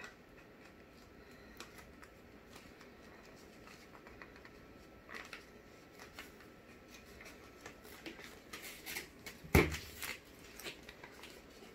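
Faint crinkling, rustling and clicking as a plastic bottle is turned in the hands and duct tape is wrapped around it, with one sharp knock about nine and a half seconds in.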